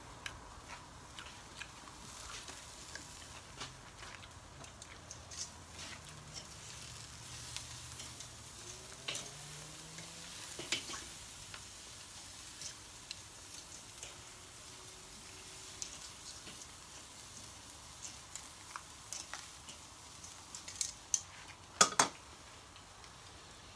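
Oysters and clams in their shells sizzling on a charcoal grill, a steady hiss dotted with scattered sharp clicks. Two loud clacks come near the end.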